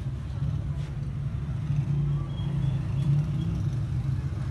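Steady low rumble of background traffic.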